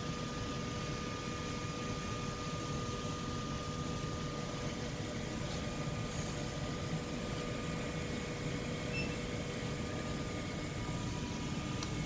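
Steady machinery hum from a walk-in temperature and humidity test chamber's equipment, with two faint steady whines over a low rumble. A few faint clicks come through, around the middle and near the end.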